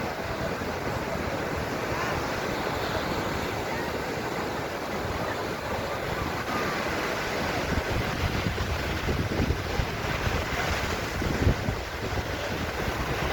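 Sea surf washing onto a beach, a steady rush of waves, with wind buffeting the microphone in low gusts that grow stronger in the second half.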